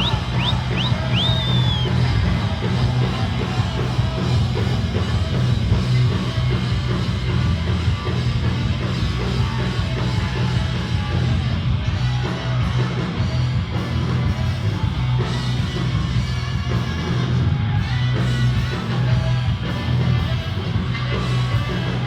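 A rock band playing live and loud: electric guitars over a heavy, booming low end, with a few short high squeals in the first two seconds.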